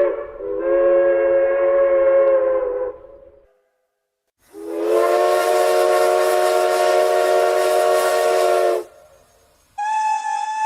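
Steam train whistle sound effects. A chime whistle sounds several notes at once in a steady blast of about three seconds. After a second of silence a second chord blast of about four seconds comes with a loud hiss of steam, and about ten seconds in a higher whistle on one note starts.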